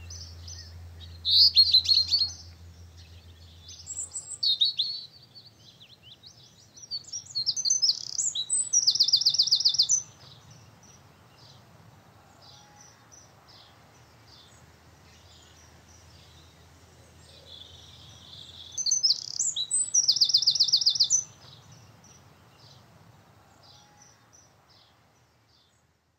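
Songbird chirps and song, with two loud, rapid trills about eight and twenty seconds in. A low hum underneath stops about four seconds in, and the birdsong fades out near the end.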